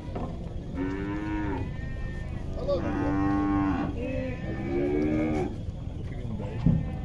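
White zebu cattle in a crowded pen mooing: about four calls, the longest a little over a second near the middle, over a low background rumble. A single sharp knock comes near the end.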